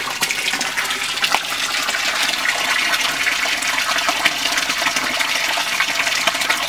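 Steady rush of running, splashing water in a garden pond.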